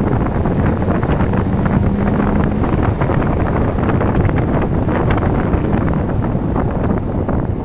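Car driving along a narrow, patched asphalt road: steady engine and tyre noise with wind buffeting the microphone and frequent small knocks from the road surface.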